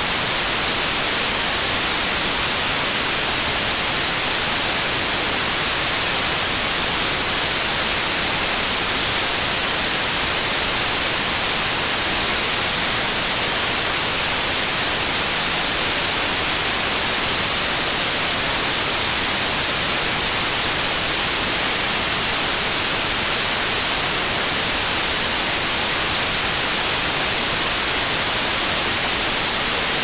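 Steady, unchanging white noise: an even, bright hiss with most of its weight in the high end.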